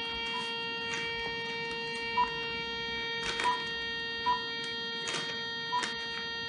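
Steady electronic hum from a gadget, with five short beeps and a few sharp clicks scattered through it.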